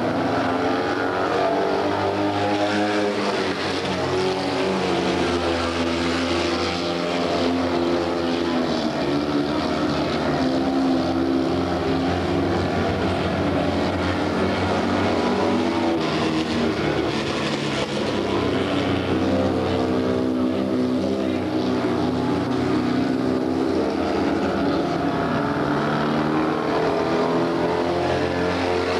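Several Fiat 126p race cars' small two-cylinder engines revving hard together, their pitches rising and falling as the cars accelerate and lift off through the corners.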